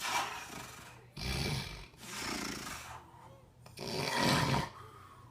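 A sleeping person snoring: about four noisy, breathy snores, each under a second long, with the last about four seconds in.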